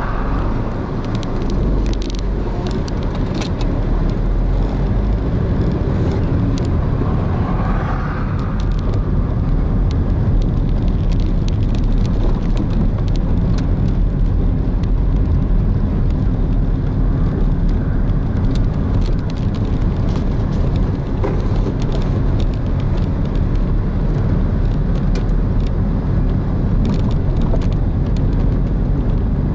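Steady road and engine noise heard inside a moving car: a low, even rumble of tyres and engine.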